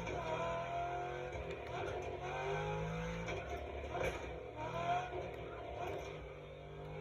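Ford Mustang Shelby's engine running as the car drives, rising in pitch several times, with guitar music playing over it.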